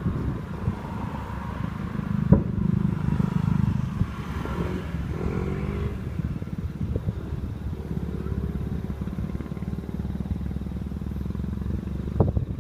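Fireworks display: low rumbling booms of aerial shells with continuous crackle, and one sharp bang about two seconds in.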